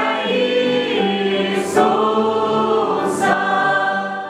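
Church congregation, men and women with a small group of young singers, singing a hymn together in long held notes without instruments; the singing ends near the end.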